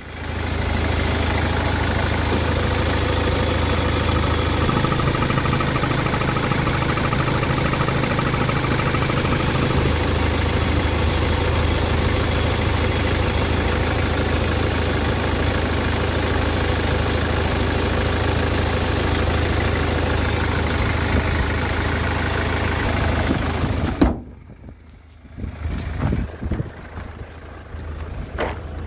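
Kia Sportage's 1.7-litre CRDi turbo-diesel four-cylinder engine idling steadily, heard up close with the bonnet open. About 24 seconds in, the sound cuts off suddenly with a click, and fainter, uneven sounds follow.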